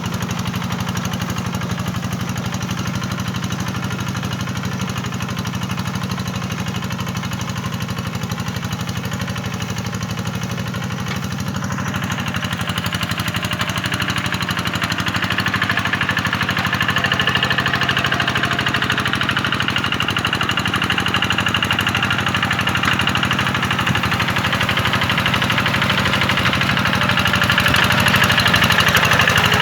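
Tractor engine running steadily with a knocking beat. About twelve seconds in, a brighter hissing layer joins the engine sound and stays.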